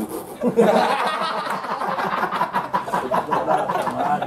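A group of men bursting into loud, hearty laughter about half a second in, several voices laughing at once.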